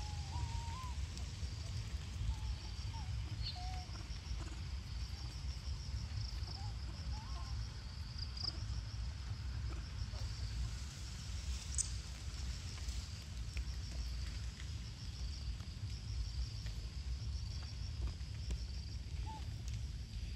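Outdoor ambience: insects chirring in a steady pulsing trill over a constant low rumble, with a few short high calls, most of them in the first few seconds.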